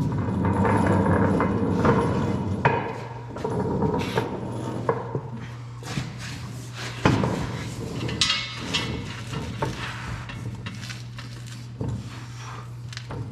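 Metal knocks and clanks from tools and parts as a tractor transfer case is worked back into place, a few sharp strikes standing out, over a steady low hum.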